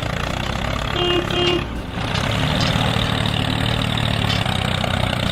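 Tractor engine running steadily, laid over a toy tractor as a sound effect, with two short beeps about a second in and a brief drop in the engine sound just before two seconds in.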